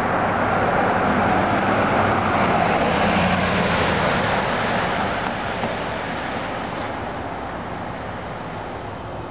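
Road traffic: a passing vehicle's tyre and engine noise, loudest in the first few seconds and fading away after about five seconds.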